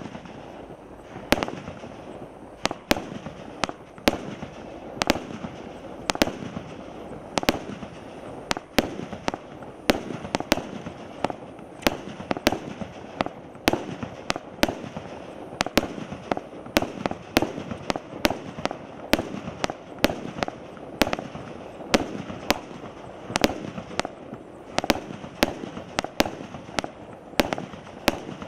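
Multi-shot consumer firework firing a long, steady run of aerial shots, heard from about 25 metres: a sharp bang every second or so, with continuous noise between the bangs.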